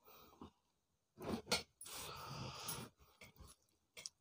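Faint eating sounds: fingers mixing rice and curry on steel plates, with a few short clicks about a second in and a noisy stretch of chewing and mouth noise after.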